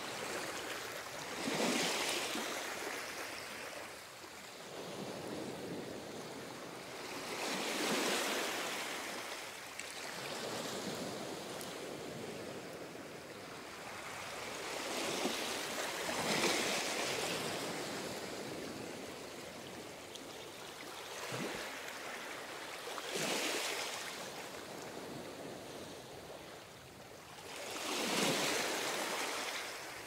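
Ocean surf breaking and washing up the shore in slow, regular surges, one swelling and fading about every six seconds, five in all.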